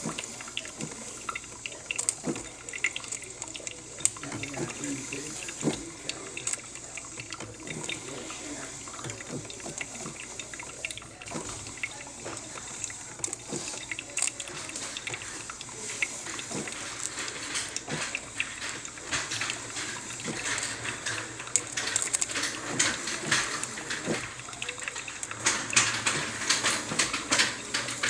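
Cuisinart drip coffee maker brewing: water bubbling and spitting through the machine with many small pops and crackles, getting busier near the end.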